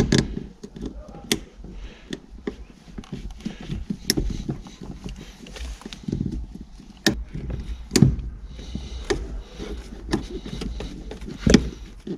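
Scattered sharp clicks and knocks with rustling as pliers and hands work on the hose clamps of the fuel feed and return lines at the top of a VW T4's fuel tank.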